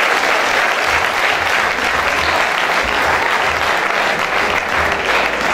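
Crowd applauding steadily, a dense continuous clapping.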